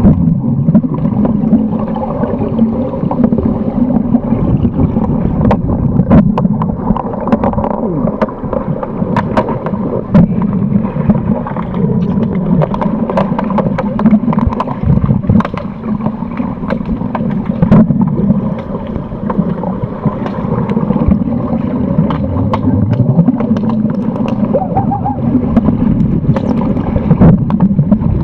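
Pool water heard through an underwater camera's microphone during underwater hockey play: a continuous muffled rumble and gurgle, with frequent sharp clicks and knocks scattered through it.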